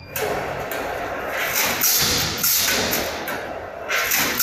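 Vertical chips packaging machine starting up a moment in and running its bagging cycle: a loud rushing noise with a surge every second or two, and thuds as it cycles.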